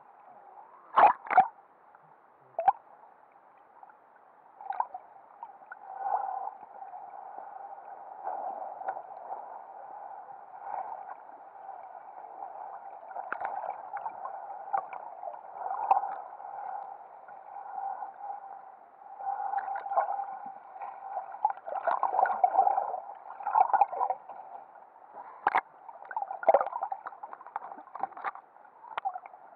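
Muffled underwater water noise picked up by a camera held underwater: gurgling and sloshing that swells and fades, with a few sharp clicks about a second in and again near the end.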